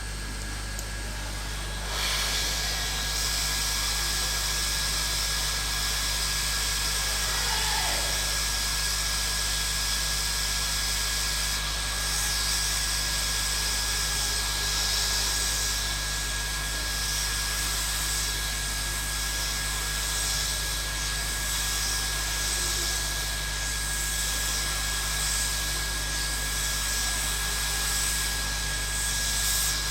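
Hot air rework gun blowing steadily on a phone motherboard, heating the glued-down chip to about 350 °C so the underfill softens and the chip can be pried off. The airflow hiss comes on about two seconds in and holds, over a steady high whine and a low hum.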